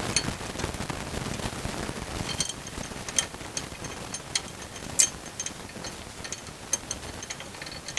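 Scattered light metallic clicks and taps of a nut and lock washer being threaded by hand onto a bolt through the steel slider plate of a van seat swivel.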